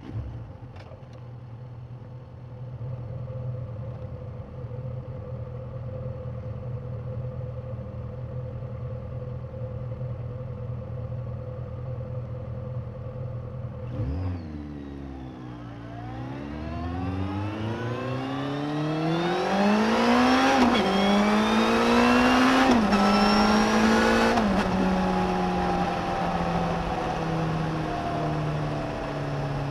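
Suzuki GSX1250FA's inline-four engine, picked up from under the seat, holds a steady note while riding, then about halfway through dips and accelerates hard, the pitch climbing with two quick gear changes. Near the end it settles into a steady cruise that slowly eases off.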